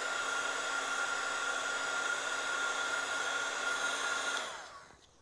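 Electric heat gun running, a steady rush of air with a high whine, as it shrinks heat-shrink tubing over a soldered wire. Near the end it cuts off and winds down.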